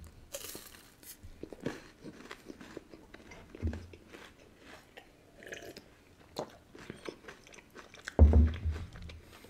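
Close-miked biting and chewing of a crunchy chocolate-coated bar: a string of small, quiet crunches.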